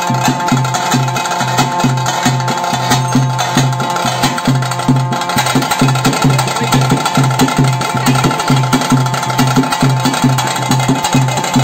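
Tulu daiva-dance (bhuta kola) ritual drums beating a fast, even rhythm, about three strokes a second, over a steady held high tone.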